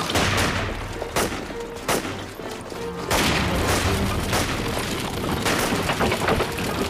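Film action soundtrack: dramatic music under a series of sharp bangs of gunfire, several in a few seconds, with heavy low rumble.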